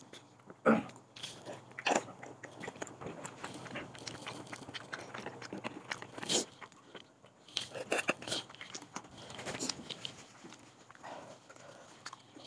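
Eating sounds: chopsticks clicking and scraping against a ceramic clay pot and porcelain bowls, with chewing. Short sharp clicks come scattered throughout, the loudest about a second and two seconds in.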